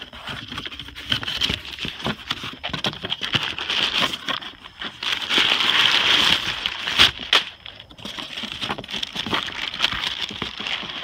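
Crumpled brown kraft packing paper rustling and crinkling as it is handled and pulled from a cardboard shipping box, with cardboard flaps scraping. It goes on without a break, loudest around the middle, with one sharp snap just after the middle.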